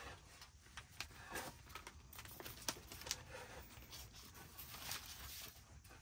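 Soft, irregular scrapes and clicks of a utensil stirring food in a large frying pan, with faint rustling as a paper packet is poured from.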